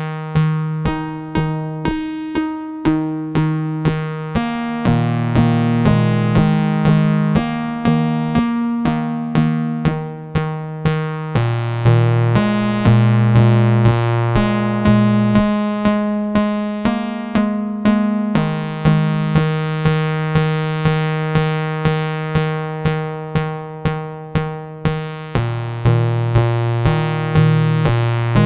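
Eurorack modular synthesizer patch playing a repeating pattern of plucked, quickly decaying notes, about two a second. The notes are Winterbloom Castor & Pollux oscillators pinged through a Steady State Gate low pass gate and fed into a Xaoc Sarajewo bucket-brigade delay. Low bass notes shift every second or two underneath.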